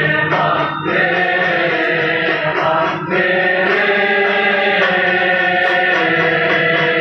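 Men's voices chanting an Islamic devotional song (shalawat) together in unison over a public-address relay, with long held notes that break and start again about a second in and about three seconds in.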